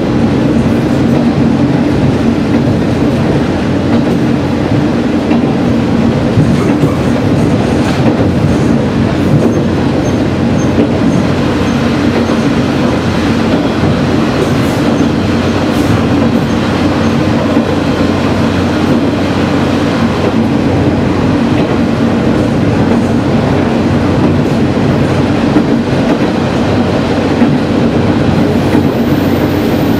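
Sanriku Railway diesel railcar running along the line, heard from inside the car: a steady engine drone with the rumble of wheels on the rails and a few clacks over the track.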